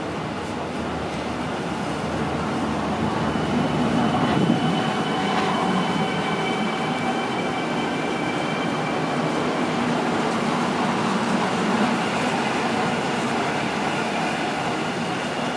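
Koleje Mazowieckie EN57AL electric multiple unit running along the platform: a steady rumble of wheels on rails with a thin high whine, loudest from about four seconds in.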